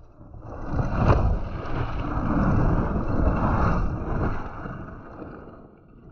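Wind buffeting the microphone over the rumble of mountain-bike tyres rolling fast on gravel. It swells over the first second and fades away in the last two.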